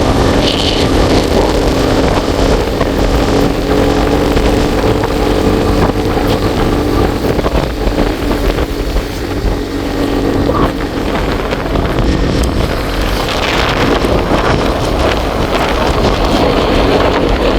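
A vehicle engine running steadily while driving, with wind noise on the microphone.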